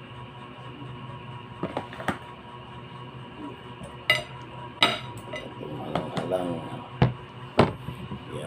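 Cutlery clinking and scraping against a plate while eating: a string of sharp, separate clinks, the loudest about four and five seconds in and again around seven seconds.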